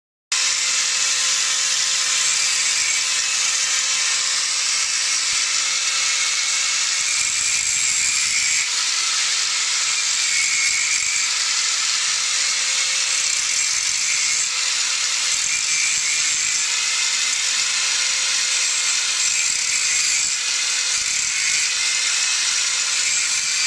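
Electric angle grinder running steadily with a constant whine and hiss, its disc grinding the cutters of a chainsaw chain to sharpen them.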